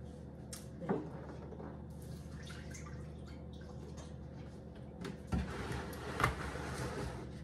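Milk poured from a plastic gallon jug into a stainless steel pot, with a sharp knock about a second in and louder knocks and handling noise near the end as the jug is moved.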